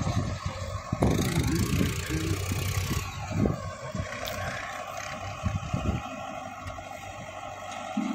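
Diesel engines of a JCB backhoe loader and waiting tractors running, heard from a distance as a steady low rumble with a few scattered knocks, while the backhoe digs soil.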